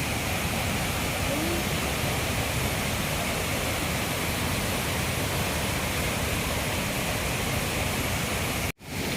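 Steady rush of falling water from a waterfall. It cuts out for a moment near the end.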